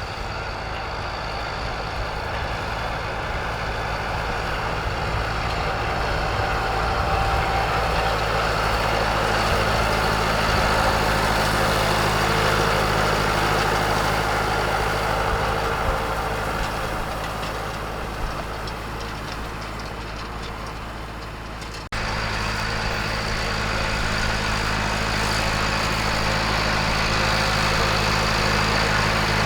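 Tractor engine running steadily while pulling a hay tedder through the field, growing louder as it comes near and fading as it moves away. About two-thirds of the way through, the sound cuts abruptly to a steady, louder engine.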